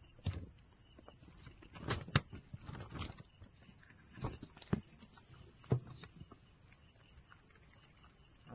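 Crickets chirring in a steady high-pitched drone, with scattered knocks and rustles as a fishing net is handled close by.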